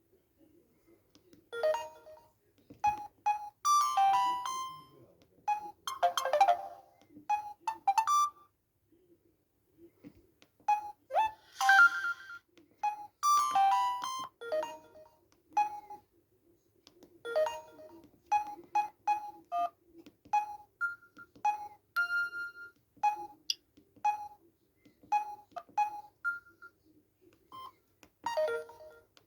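Samsung GT-S3600i mobile phone playing a ringtone through its small built-in speaker: a melody of short, separate electronic notes.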